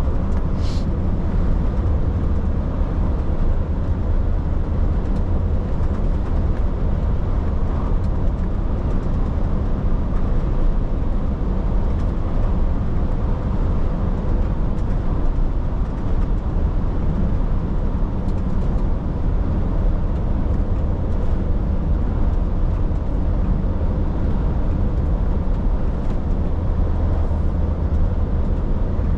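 A truck driving on the open road: a steady low rumble of engine and road noise that does not change in level.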